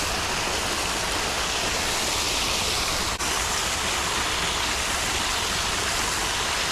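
Small waterfall's steady rush of falling water, with a brief dropout about three seconds in.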